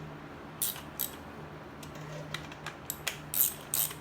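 Hand tools clicking and clinking on metal hardware as bolts are snugged up, about half a dozen sharp, irregular clicks over a faint steady hum.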